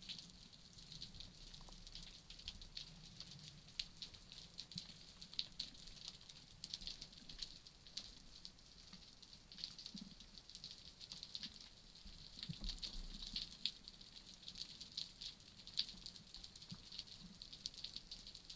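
Underwater crackle of snapping shrimp on a rocky reef: a dense, steady stream of tiny sharp clicks, heard faintly through the camera housing.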